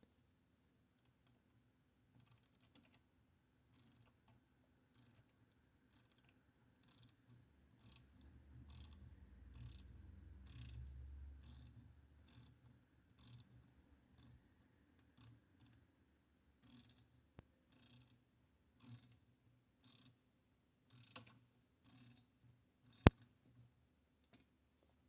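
Flathead screwdriver backing a large screw out of a typewriter's front plate, giving soft clicks about every half second. A low rumble of handling comes in the middle, and there is one sharp click near the end.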